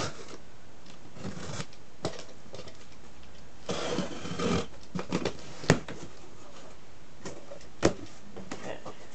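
Utility knife scraping along and slicing the packing tape on a cardboard box, in a few short passes with sharp clicks, the loudest about two-thirds of the way through. Near the end the cardboard flaps are pulled open with a light rustle.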